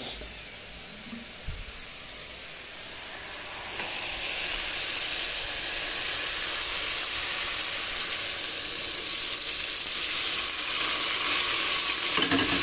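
Hot fig and potato curry in a kadai sizzling as coconut milk is poured in. The sizzle starts about four seconds in and grows louder near the end.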